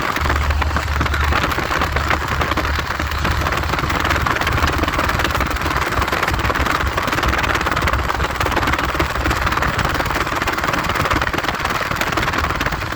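Car driving along at a steady speed: a continuous rush of road and engine noise with a low hum.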